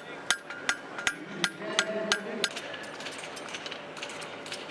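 Blacksmith's hammer striking steel on an anvil, about three ringing blows a second for the first two seconds, then fainter, scattered hammering.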